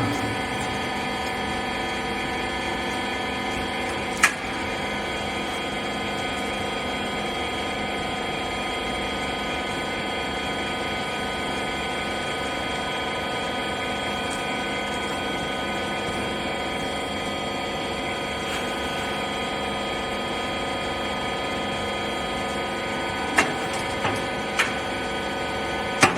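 Hydraulic wiper rag baler running: a steady machine hum made of many steady tones. There is a sharp knock about four seconds in and a few more knocks near the end.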